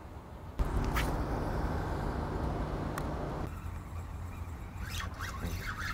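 Steady low outdoor rumble that starts suddenly about half a second in and eases a little after three and a half seconds, with a couple of faint clicks.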